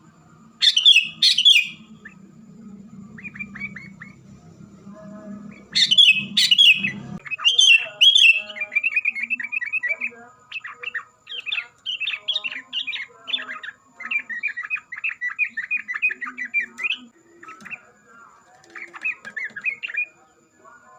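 Yellow-vented bulbul and sooty-headed bulbul singing busily: loud sharp calls about a second in and again around six seconds in, then a long run of quick, chattering phrases. A low hum sits underneath and stops about seven seconds in.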